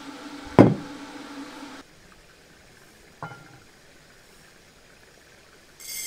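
Microwave oven humming steadily, then cutting off just under two seconds in. A sharp knock about half a second in is the loudest sound, and a lighter click follows about three seconds in.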